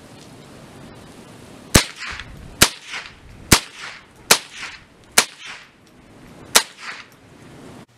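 Six shots from a Ruger 10/22 .22 rimfire semi-automatic rifle, fired in quick succession roughly a second apart. Each sharp crack is followed by a short fading echo.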